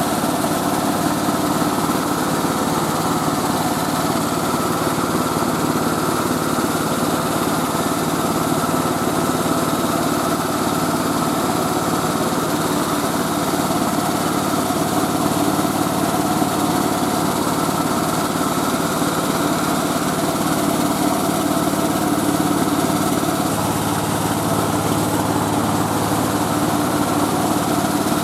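Engine of a mobile rice milling machine running steadily under load, a constant mechanical drone. Late on, a low hum in it grows a little stronger.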